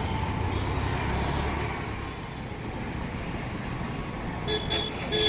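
Road traffic: a steady rumble of passing vehicles, with a vehicle horn honking near the end, once briefly and then a longer blast.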